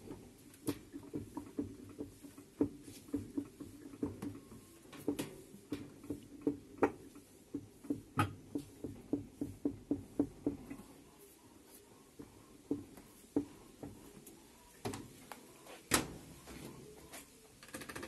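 Light knocking and clunking from a Mabe top-load washer's wash basket as it is rocked back and forth by hand. The knocks come from the free play of a worn transmission whose bearing is destroyed. The knocks come about two a second for roughly the first ten seconds, then turn sparse, with the loudest one near the end.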